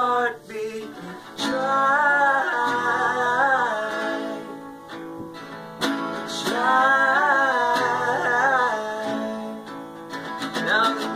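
Two acoustic guitars strummed and picked together, with two long sung phrases over them, the first about two seconds in and the second about six and a half seconds in.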